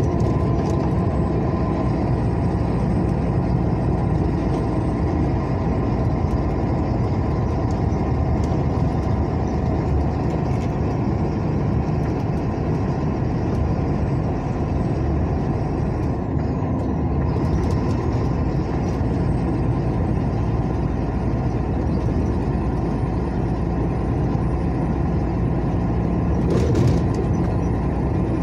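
A motor vehicle driving at a steady pace along a highway: continuous engine and tyre noise, with a short louder hiss near the end.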